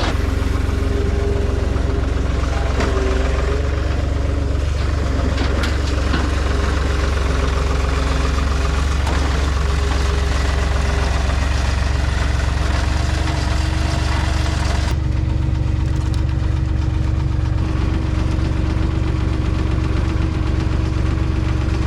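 Skid steer's diesel engine running steadily with a heavy low rumble, with a few short knocks in the first several seconds as it works on scrap. About fifteen seconds in, the higher-pitched noise drops away and the engine rumble carries on alone.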